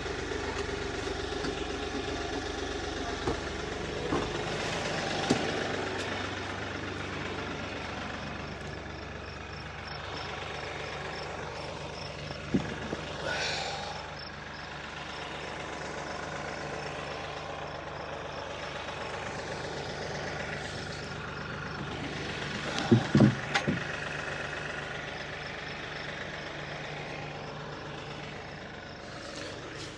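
Diesel tractor engine idling steadily. A heavy oak slab gives a knock about 12 seconds in and a loud cluster of knocks about 23 seconds in as it is lifted off the milled log and set down on the ground.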